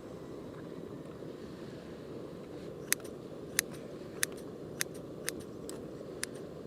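Cooking utensils clicking sharply against a pot about six times in the second half, evenly spaced, over a steady low rushing noise.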